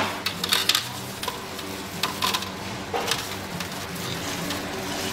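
Gloved hands handling a freshly baked egg waffle on a metal wire cooling rack and steel tray: a few sharp clicks and light clatters with rustling, the loudest right at the start.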